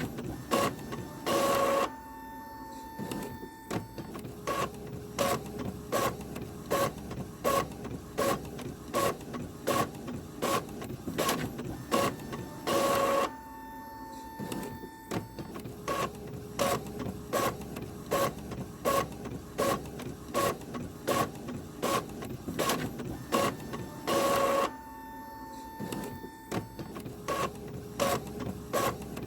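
Printer running through a print job: a rhythmic clatter of sharp clicks about two a second, broken about every 11 to 12 seconds by a louder, longer burst of under a second, with a faint steady tone between.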